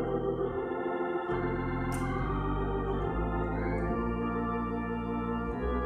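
Organ music: slow held chords, with the bass note changing about once a second.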